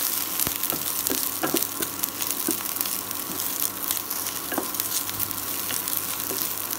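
Cut okra sizzling in a little oil in a nonstick pan while being stir-fried to crisp it, with scattered scrapes and light knocks of a wooden spatula against the pan.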